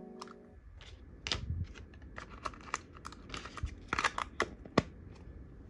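A thin clear plastic cup and its snap-on lid being handled: quiet, irregular clicks and crackles of plastic as the lid is pressed onto the cup, with the sharpest clicks about one, four and five seconds in.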